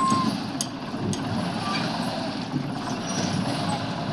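Heavy truck's diesel engine running under load as the truck creeps over a rough, broken dirt road, a steady low rumble throughout. A short high squeak sounds right at the start.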